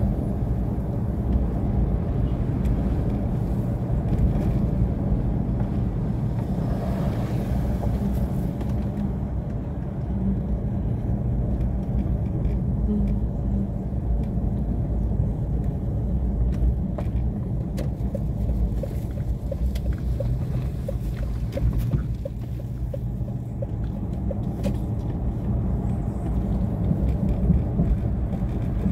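A car driving along a road, heard from inside: a steady low rumble of engine and tyres on the road. A faint regular ticking comes in for a few seconds past the middle.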